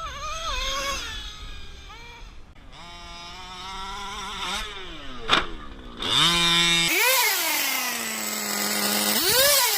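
Small two-stroke gas engine of a 1/5-scale Rovan Baja 5T RC truck revving up and down, its pitch rising and falling between short steady stretches, with one sharp click about halfway through.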